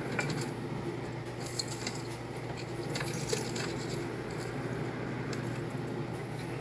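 Nissan Cube's brake rotors making light, irregular metallic clicks and scrapes over a steady low running hum.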